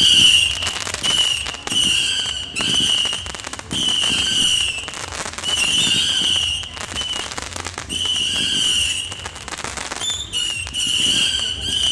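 Nico Sound Check 750-shot whistle battery firing: waves of overlapping shrill whistles coming every second or two, with dense crackling from the crackling-star effects between and beneath them.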